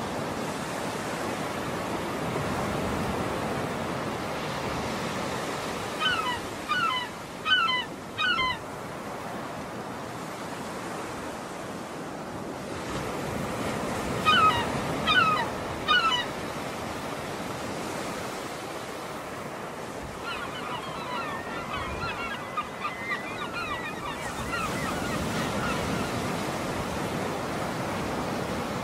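Waves washing in with a steady rush, while a bird calls in short bursts: three or four calls twice, then a longer run of quicker calls later on.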